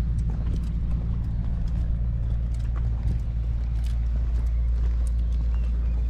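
Steady low rumble of wind buffeting a GoPro's microphone, with scattered footsteps and light knocks on a concrete breakwater over it.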